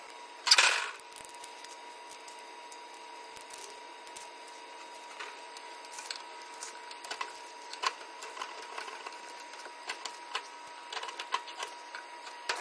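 Hand work on a forklift body: a short, loud scrape or rip about half a second in, then scattered small clicks and taps of tools and parts, growing more frequent in the second half, over a faint steady high tone.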